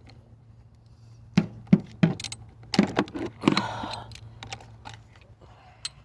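Hand tools working on a car battery terminal: an irregular run of sharp metallic clicks and clinks, with a short rattle in the middle, thinning out toward the end.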